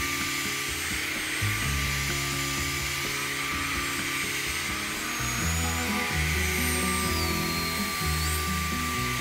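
Cordless stick vacuum running with a steady high-pitched whine, over background music with a changing bass line.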